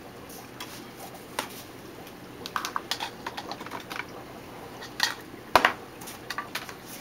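Scattered small clicks and knocks of a power cord and plug being handled and plugged in, the two loudest knocks coming a little past the middle.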